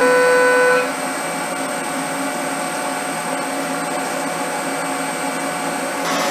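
CNC mill's end mill cutting aluminium stock under a coolant spray. A steady pitched ringing from the cut stops about a second in, leaving a steady machining and spray hiss.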